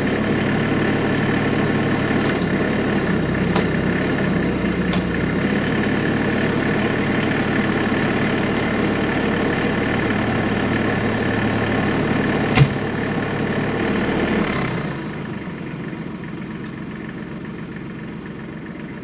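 Tractor engine running steadily at idle, with one sharp knock about two-thirds of the way through. Shortly after, the engine sound falls away to a much quieter hum.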